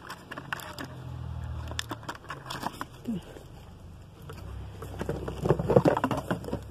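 Crinkling and clicking of a plastic blister pack and cardboard packaging being handled, with a denser burst of rustling about five seconds in.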